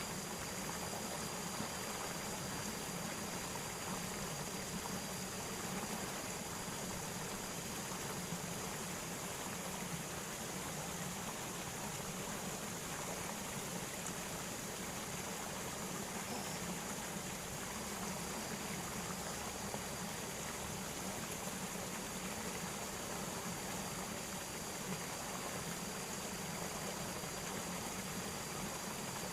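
Steady rush of flowing water, even throughout, with a faint steady high-pitched whine above it.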